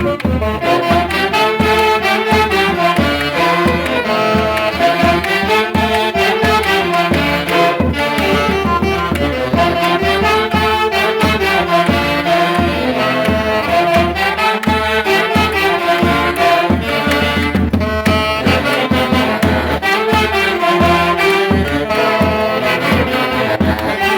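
Traditional Mantaro Valley orchestra music from a Peruvian orquesta típica, several instruments playing a melody over a steady beat.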